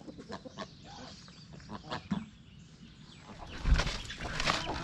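Chickens and other poultry calling and clucking in a coop, with short scattered calls at first; louder knocks and rustling of handling begin about three and a half seconds in.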